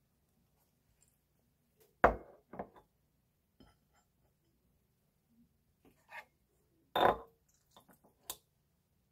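A glass jar and ceramic tableware handled on a kitchen counter: a few sharp clinks and knocks, the loudest about two seconds in and again about seven seconds in.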